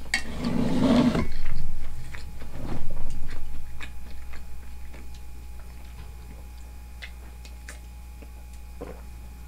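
A person chewing food: loud mouth noises in the first second and again around three seconds in, then quieter chewing with small clicks.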